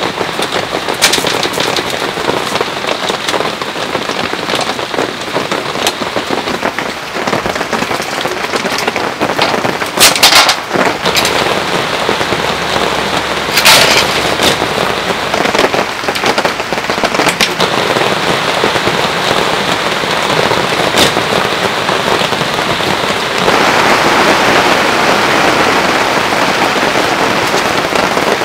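Heavy rain falling steadily, with sharp metallic clicks and clatters from a folding steel camp table with a mesh-top panel being unfolded and its legs locked. The loudest clatters come around 10 and 14 seconds in. The rain grows louder from about 23 seconds in.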